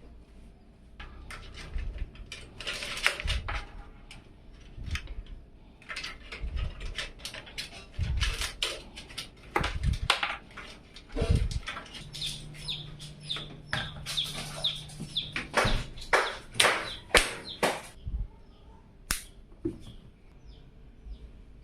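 Irregular clicks and knocks of hard parts being handled and fitted during PC assembly, with a steady low hum for a few seconds around the middle and short high chirps in the background.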